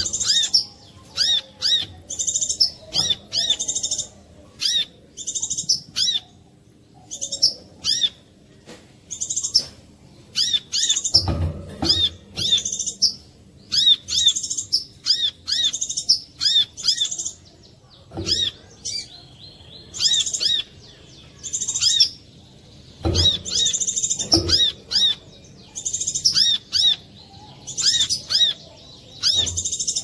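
Brown-throated sunbird singing: quick phrases of short, high, sharp chirps repeated over and over, used as a lure call to set other sunbirds singing. A few dull low knocks sound under the song.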